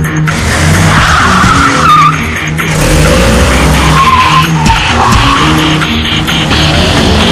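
Car tyres squealing in two wavering squeals, about a second in and again around four to five seconds in, over electronic music with a steady low beat.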